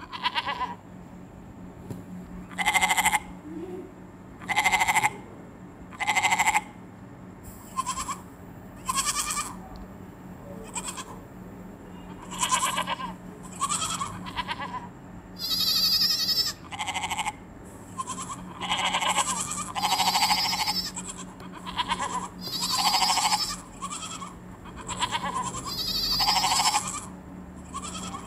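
Young goats bleating over and over, about twenty calls, each shorter than a second and coming every second or two. A steady low hum runs underneath.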